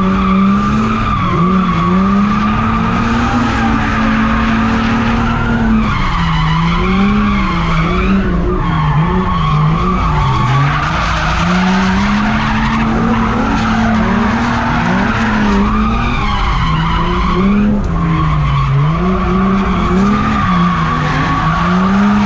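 Drift cars sliding under power: engine revs rising and falling over and over as the throttle is worked, over loud, near-continuous tyre squeal that shifts pitch briefly a couple of times.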